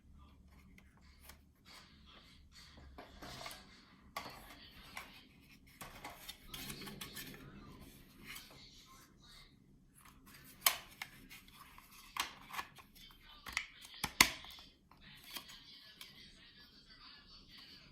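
Small hard 3D-printed plastic parts being handled: light clicks, taps and rubbing, with a few sharp loud clicks about two-thirds of the way through.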